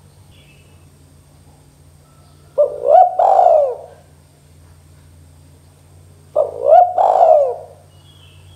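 Spotted dove cooing: two phrases about four seconds apart, each a short note followed by longer coos that rise and then fall in pitch.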